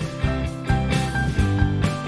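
Upbeat background music with guitar and a steady drum beat.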